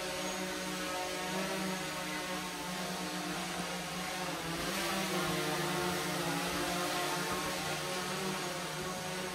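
Small drone's propellers running with a steady whirring hum whose pitch wavers slightly.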